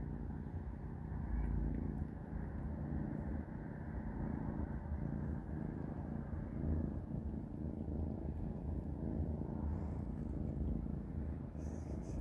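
Kitten purring, a steady low rumble, with a few faint clicks near the end.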